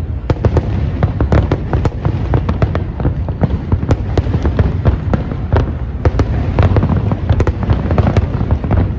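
Aerial fireworks exploding in rapid succession, many sharp bangs and crackles a second over a continuous low rumble of overlapping booms.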